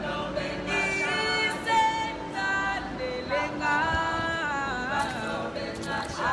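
Singing of a slow ballad melody, with long held notes that slide from one pitch to the next.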